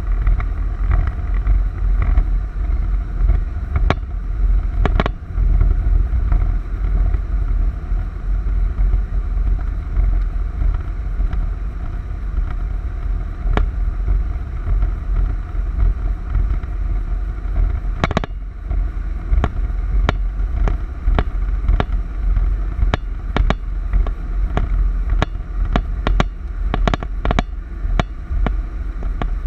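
Storm wind buffeting the microphone: a heavy, gusting low rumble. In the second half it is joined by many short, sharp clicks.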